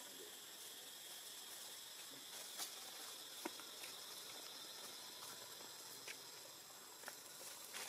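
Faint forest ambience: a steady high insect drone, with a few soft clicks and ticks about two and a half and three and a half seconds in.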